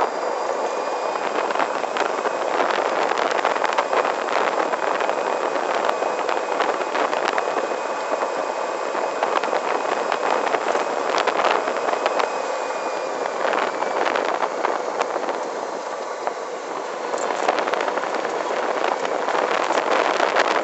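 Electric go-kart conversion driving along a street: steady rush of wind and tyre noise, with a faint steady high whine through much of it and scattered clicks and knocks. The drive is quiet enough that the motor barely shows under the wind.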